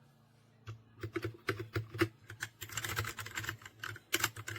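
Typing on a TMKB T68 60% mechanical keyboard: a quick, irregular run of key clicks and keycap clacks starting under a second in, over a faint steady low hum.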